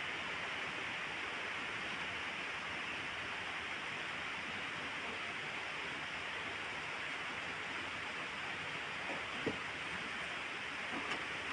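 Steady rain falling, an even hiss with no let-up. A single short knock about nine and a half seconds in.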